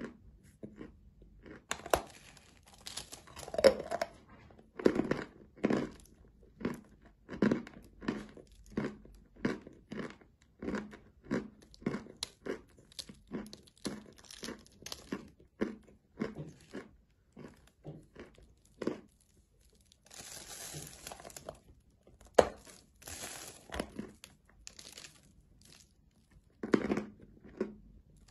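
Close-miked biting and chewing of a large chunk of edible chalk: a run of dry, gritty crunches about two a second, with a longer steady grinding stretch about two-thirds of the way through.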